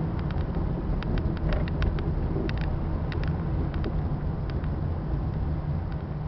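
Steady low engine and road rumble heard from inside a moving bus, with many short, irregular clicks and rattles that thin out after about four and a half seconds.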